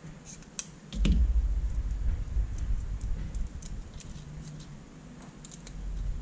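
Small scattered clicks and ticks of metal tweezers and fingers working a thin metal lamp reflector and its rubber lamp boot, with a low handling thump about a second in.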